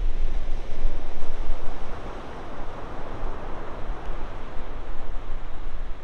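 Ocean surf breaking and washing in a steady rushing hiss, with wind gusting on the microphone in a low rumble. The wash of the surf swells a couple of seconds in.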